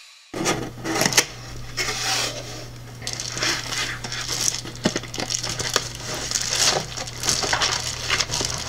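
Plastic bubble-wrap packaging crinkling and crackling as it is handled and unpacked by hand, with irregular crackles throughout over a steady low hum.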